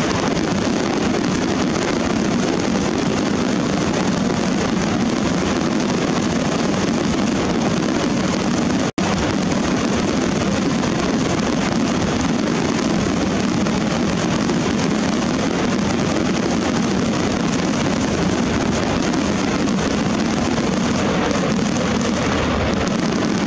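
Fireworks finale barrage: aerial shells bursting so fast that the blasts merge into one continuous loud rumble. The sound cuts out for an instant about nine seconds in.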